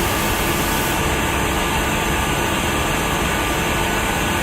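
Steady machinery noise: an even rushing hum with a few faint steady tones, unchanged throughout.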